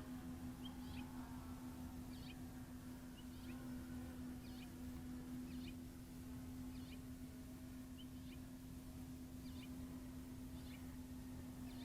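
A bird calling with a short, high chirp about once a second over a steady low hum.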